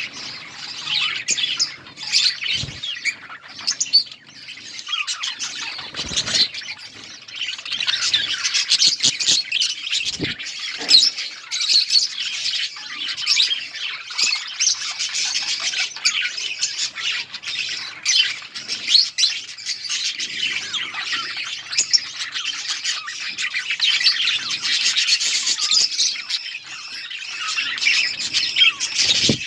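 A colony of budgerigars chattering and chirping, many birds calling over one another without a break, with a few short knocks among the calls.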